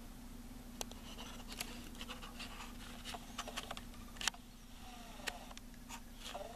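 Faint camera-handling noise: scattered clicks and short scratchy rustles, thickest in the first two-thirds, over a steady low hum.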